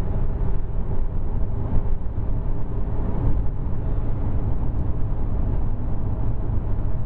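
Car in motion heard from inside the cabin: a steady low rumble of engine and road noise with a faint hum.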